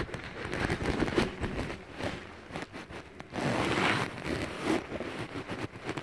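Irregular rustling and crackling with scattered small clicks and knocks, typical of footsteps and of handling noise from the phone as it is carried along.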